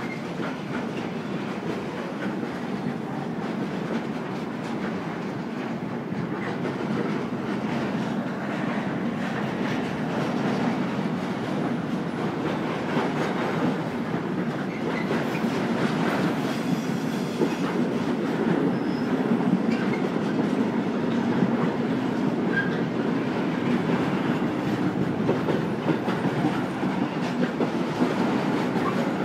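Freight train of container flat wagons carrying tank containers rolling steadily past, with the continuous rumble and clickety-clack of wagon wheels on the rails, growing slowly louder.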